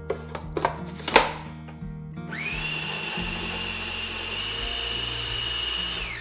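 Kenwood food processor: the plastic lid clicks into place a few times, then about two seconds in the motor spins up to a steady high whine as the blade cuts cold butter into flour for shortcrust pastry, running for about four seconds before winding down at the end.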